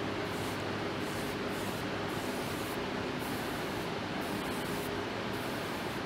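Steady background hiss with a low hum, even in loudness throughout, like shop ventilation running.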